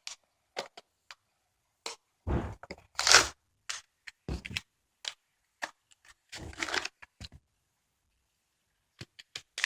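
Plastic packaging crinkling and rustling in irregular short bursts as it is handled and pulled at, with scattered clicks.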